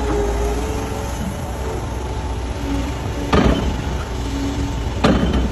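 Liebherr crawler excavator running with a steady low engine rumble and hydraulic whine. Its bucket makes two short, loud crunches of soil and stones, about three seconds and five seconds in.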